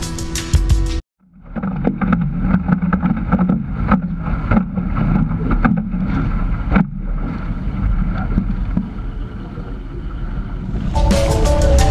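Wind buffeting the microphone of a camera mounted on the bow of a foiling sailing dinghy, with water rushing and slapping against the hull in short sharp hits as it sails through chop. Background music cuts out about a second in and comes back near the end.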